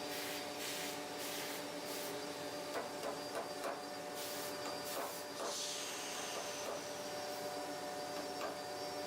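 CNC router running: a steady machine hum with short hissing bursts, several in the first couple of seconds and again around four to five seconds in, and a brief whine near the middle.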